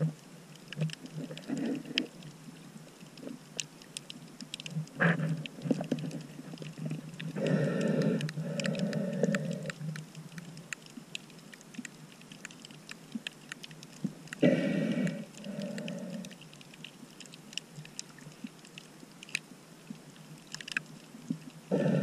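Underwater sound on a shallow coral reef: a steady crackle of small sharp clicks, with muffled snorkel breathing heard three times, each a pair of breaths, about every seven seconds.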